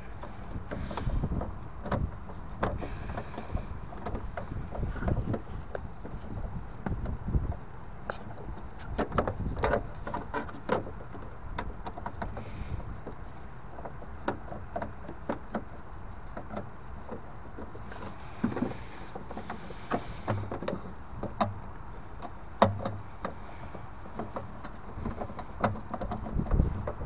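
Screwdriver working the screws that hold the diverter valve in a Vaillant EcoTec Pro boiler: irregular small clicks, scrapes and taps of the tool on metal and plastic parts, with one sharper click about three-quarters of the way through.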